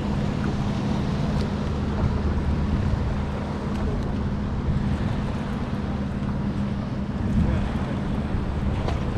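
Boat engine running steadily, a constant low hum, with wind noise on the microphone and water noise around the boat.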